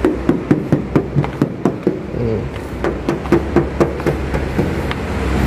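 Quick, even knocking or tapping, about four to five sharp knocks a second, over a low steady hum.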